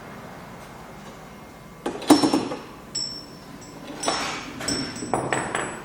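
A clank about two seconds in, then a bicycle bell ringing in several uneven dings. The bell is rung by the turning wheel of an unpowered fishing-line fire alarm that has been tripped.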